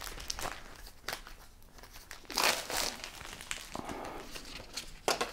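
Clear plastic bag crinkling and rustling as it is handled, in irregular bursts, loudest about two and a half seconds in.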